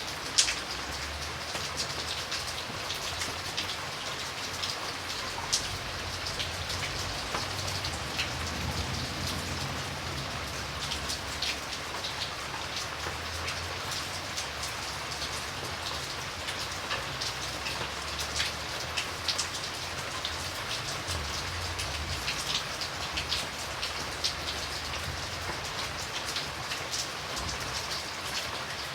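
Steady rain falling, with a continuous hiss and many individual drops striking surfaces close by as sharp ticks scattered through it.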